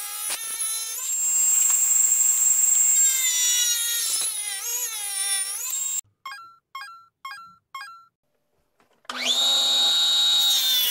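Small benchtop table saw running and cutting a wood blank, a steady motor and blade whine whose pitch wavers as the wood is fed through; it cuts off abruptly about 6 s in. A short run of plucked music notes follows, and the saw's whine returns abruptly near the end.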